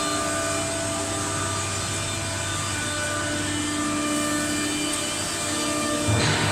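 MSK2513A-M CNC nesting router running: a steady machine noise with several steady whining tones over a low hum, of the kind made by a router spindle and vacuum or dust-extraction blowers. A short, louder low-pitched burst comes near the end.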